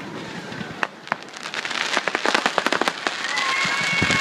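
Fireworks going off: a few sharp pops, then dense rapid crackling from crackling stars, growing louder through the second half. A steady high whistle comes in during the last second.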